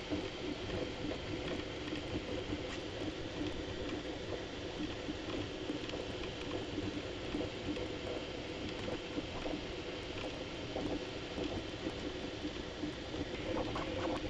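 Bambu Lab A1 3D printer at work, its stepper motors and fans sped up tenfold into a steady, rapidly fluttering mechanical chatter.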